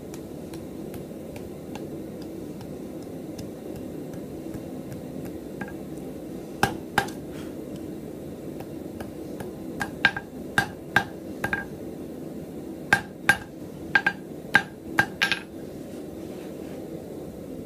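Hand hammer striking a hot 3/16-inch round steel bar on an anvil face while forging an S hook. There are two blows, then two quick runs of ringing metal-on-metal blows. A steady low hum runs underneath.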